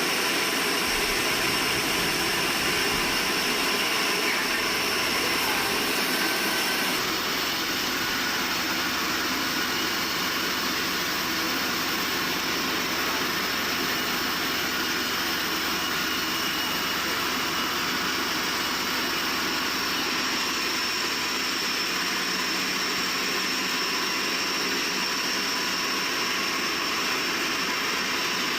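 Sawmill machinery running steadily: a continuous roar with a faint, steady high whine over it.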